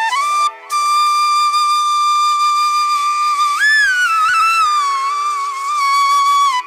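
Background music: a solo flute melody holding one long note, with slides and ornaments in pitch, over a steady drone.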